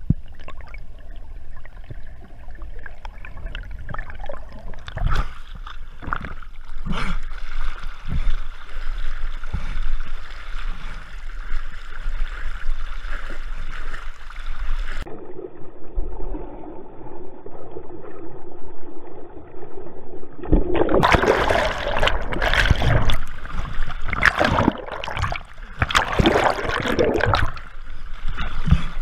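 Water sloshing and splashing right at the microphone of a swimming diver's action camera as it moves at and below the river surface. It is muffled for a stretch in the middle, then turns into loud, dense, irregular splashing for the last third.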